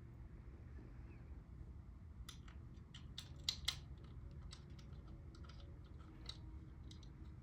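A run of light clicks and taps from small hardware being handled while a blade is fitted to a ceiling fan, starting about two seconds in, with two sharper clicks a little past the middle, over a low steady room hum.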